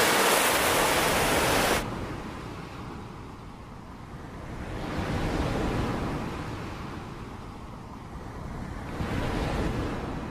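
Sea surf breaking on a rocky pebble shore: a loud rush of waves that cuts off abruptly about two seconds in, then two slower swells of surf building and fading, a few seconds apart.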